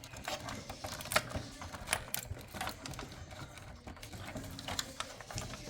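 Irregular clicks and light knocks of cables and plastic connectors being handled inside a desktop PC case, as the CPU power cable is tugged at during disassembly.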